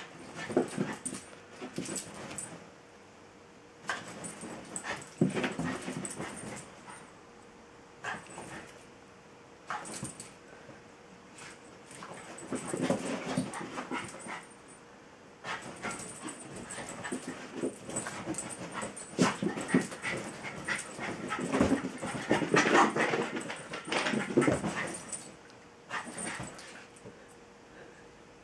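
A Jack Russell terrier making play noises at a Welsh terrier, coming in irregular bouts that are busiest in the second half, with scuffling on a cushioned dog bed.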